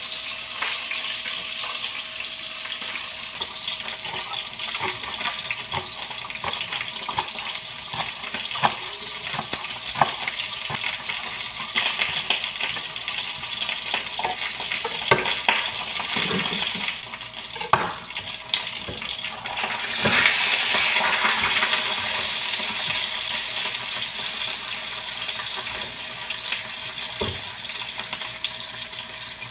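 Kitchen knife chopping spring onions on a wooden cutting board in irregular sharp taps, over a steady hiss that swells louder about twenty seconds in.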